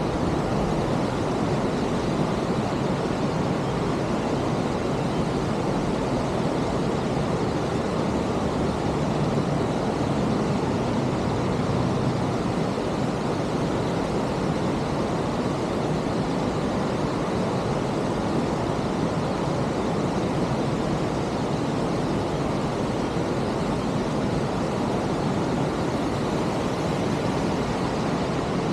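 Tahara Falls waterfall rushing steadily: a dense, unbroken sound of falling water with no change in level.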